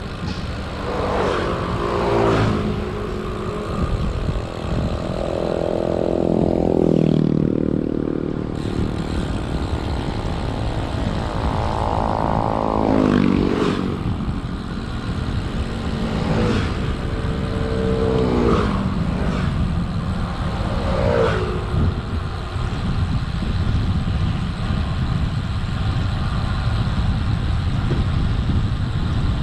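Motor vehicles passing one after another over a constant low rumble of wind on the microphone, each engine note falling in pitch as it goes by; the longest pass comes about five to eight seconds in.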